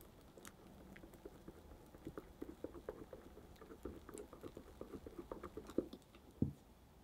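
Spatula stirring thick batter into melted butter and sour cream in a glass bowl: a quick run of soft wet clicks and taps of the spatula against the glass, with one louder knock near the end.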